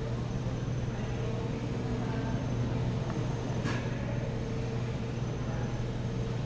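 Steady low mechanical hum with a brief tick a little past the middle.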